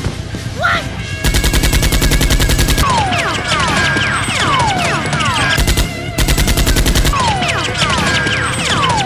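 Rapid automatic gunfire sound effect in two bursts: one about a second in lasting about a second and a half, and a shorter one around six seconds in. Between the bursts comes a run of short, repeated falling whistle-like tones.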